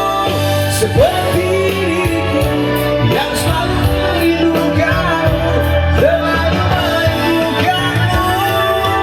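A man singing with musical accompaniment, his voice sliding between held notes over a steady backing.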